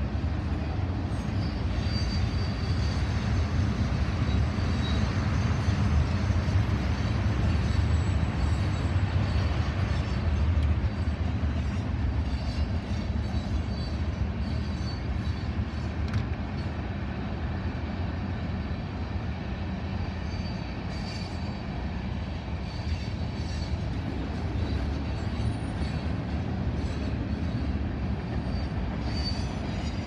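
Freight train cars rolling past: a steady low rumble of wheels on rail, a little louder in the first third, with faint high-pitched wheel squeals now and then.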